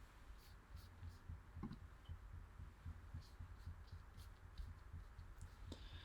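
Near silence: a low steady room hum with a few faint, scattered clicks.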